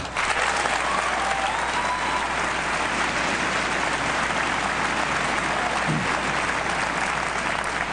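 Large audience applauding steadily, with a few cheers rising above the clapping in the first couple of seconds.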